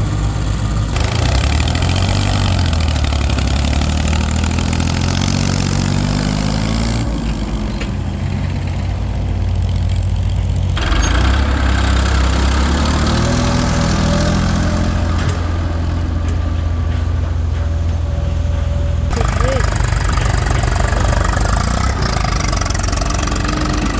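Heavy diesel engines running and revving, their pitch rising and falling, with the sound changing abruptly several times.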